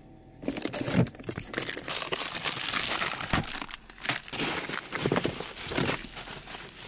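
Plastic bags and food packaging crinkling and rustling, with small knocks, as hands rummage through a fridge full of groceries.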